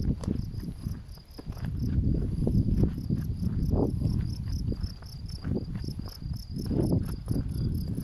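Insects chirping in a steady, even pulse of about four chirps a second, high-pitched. Underneath, and louder, an uneven low rumble with short thumps.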